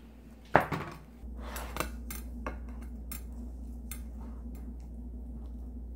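A metal utensil knocking and scraping against a glass food container of sticky rice: one sharp clink about half a second in, then a few lighter clicks. A low steady hum comes on about a second in.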